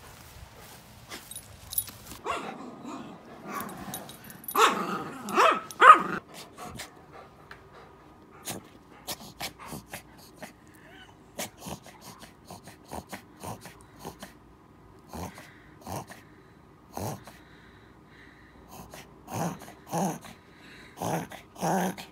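A dog making short vocal sounds in bursts: a loud cluster about five seconds in, then a run of short calls near the end. Scattered light clicks fall between them.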